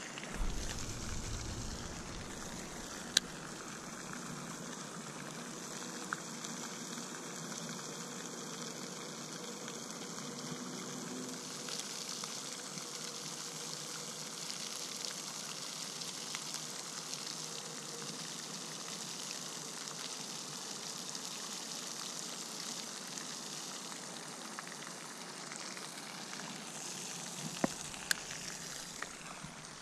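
Steady outdoor hiss, with a few faint sharp clicks, one about three seconds in and a couple near the end.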